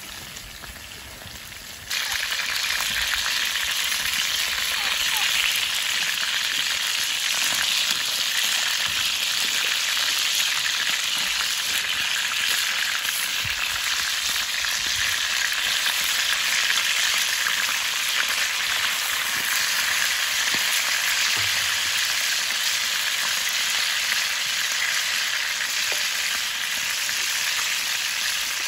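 Chicken pieces sizzling steadily in hot oil in a pot, with a wooden spatula stirring and turning them. The sizzle gets suddenly louder about two seconds in.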